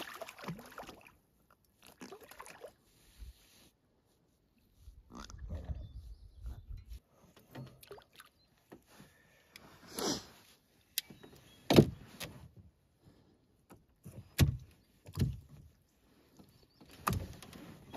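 Water splashing as a netted fish thrashes beside a canoe near the start, then scattered sharp knocks and thumps on the canoe hull as the fish and tackle are handled in the boat.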